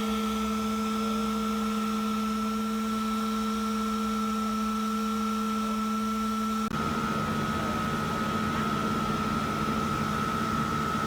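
Bee vacuum's motor running with a steady hum. About two-thirds of the way through, the hum shifts slightly in pitch and becomes noisier.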